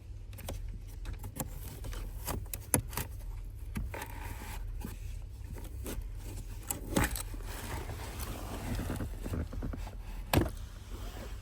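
An old, very dirty pleated cabin filter being pulled out of its plastic housing behind a car's glove box: rustling and scraping of the filter against the housing, with scattered clicks and knocks of plastic, over a steady low hum.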